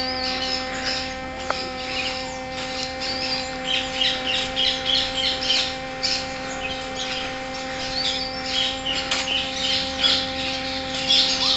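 A flock of aviary birds, including small parrot-like birds, twittering and chirping, with many short calls overlapping throughout. A steady low hum runs beneath.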